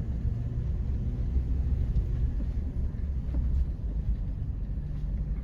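Toyota 4Runner crawling slowly along a dirt off-road trail in low-range four-wheel drive, heard from inside the cabin: a steady low rumble of engine and tyres.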